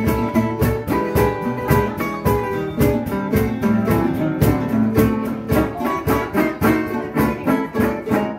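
Acoustic band playing: resonator guitar and other plucked string instruments over a steady cajon beat. The music stops abruptly at the very end.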